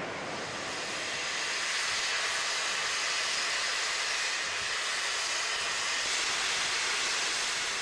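A 4-8-2 steam locomotive hissing steam steadily, building up about a second in.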